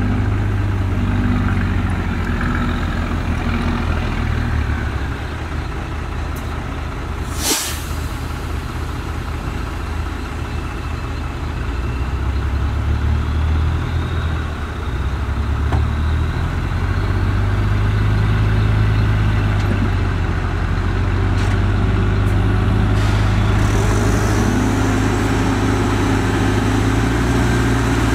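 Heavy diesel engines of a bulldozer and dump trucks running, the engine note shifting several times, with a brief sharp hiss about seven and a half seconds in.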